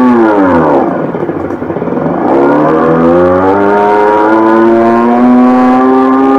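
Revolt RV400 electric motorcycle's artificial exhaust sound: a synthetic engine note from its built-in exhaust speaker, revving with the throttle. The pitch falls away at first, dips, then climbs again about two seconds in and holds high.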